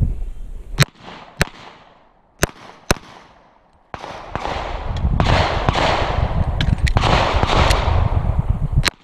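A string of back-up-pistol shots fired at an uneven pace, four in the first three seconds and several more later. From about four seconds in, a loud steady rushing noise runs under the later shots.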